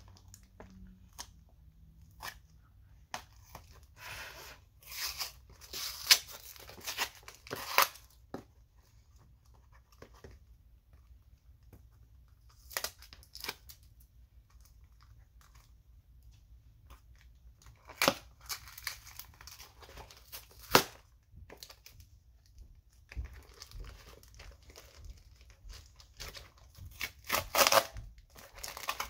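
Packaging being torn and crinkled in short spells as a mailed package is worked open, with a few sharp clicks among the rustling.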